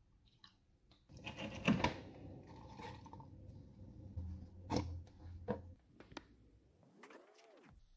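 Plastic blender cups and parts being handled and set down: an irregular clatter with several sharp knocks, and a short swooping tone near the end. The blender motor is not running.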